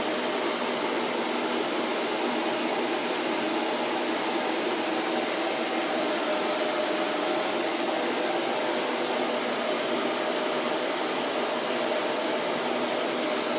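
Vacuum cleaner running steadily: an even, unchanging hiss with a faint steady hum inside it.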